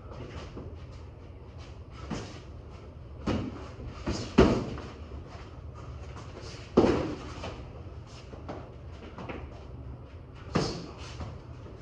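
Boxing gloves landing punches during sparring: about six hard thuds spread irregularly, the loudest near the middle, between fainter taps, each with a short echo.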